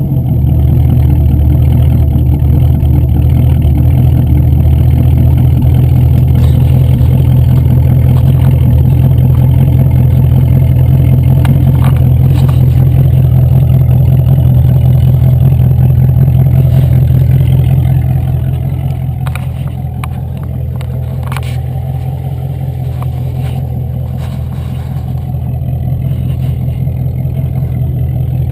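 Range Rover P38's 4.6-litre V8 running at a steady speed, then about two-thirds of the way through it drops back to a lower, quieter idle. A few sharp clicks come just after the drop.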